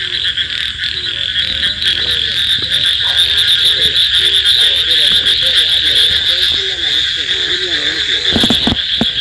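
Frogs and toads calling together in a dense chorus after rain. A steady high trill runs under many lower croaking calls that rise and fall. A few soft thumps come near the end.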